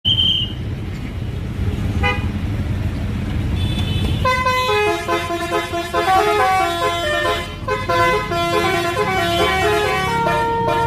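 Bus engine rumbling, then from about four seconds in a telolet basuri musical horn plays a melody, several horn tones sounding together and stepping from note to note.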